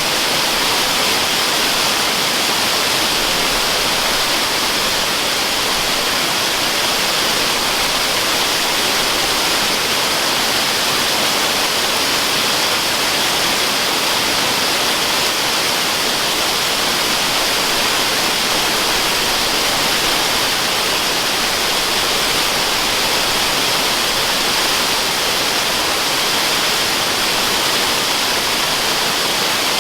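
Waterfall: water falling and splashing in a steady, even hiss, strongest in the high end, with no change.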